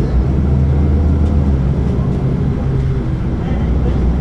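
A bus engine running, heard from inside the bus at the back, as a steady low drone with road noise.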